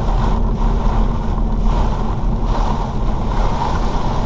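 Steady road noise inside a Volkswagen Golf VII driving through very heavy rain: tyres on the flooded surface with rain and spray hitting the car. A higher hiss swells roughly once a second over the constant low rumble.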